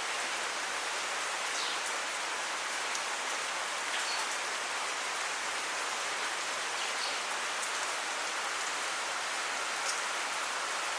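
Steady monsoon rain falling: an even hiss with a few faint ticks scattered through it.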